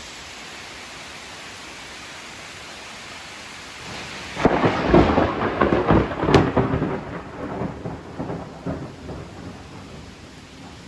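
Steady hiss of rain, then about four and a half seconds in a loud, close thunderclap breaks out with a crackling rumble that rolls on for several seconds and slowly fades.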